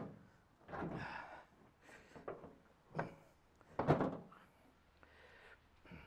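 Knocks and clunks of a microwave oven's sheet-metal casing being handled while it is taken apart. There is a sharp knock at the start, another about three seconds in, and the loudest about four seconds in, with lighter handling noise between.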